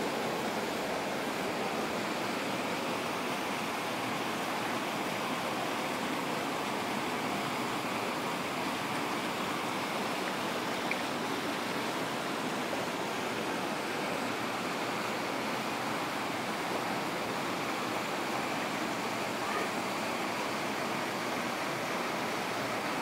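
Water pouring steadily into a carp pond from an inlet spout, a constant even rush.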